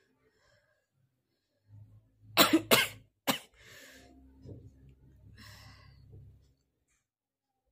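A person with a heavy head cold and blocked nose coughing three times in quick succession, the coughs harsh and loud, followed by a few seconds of quieter breathing.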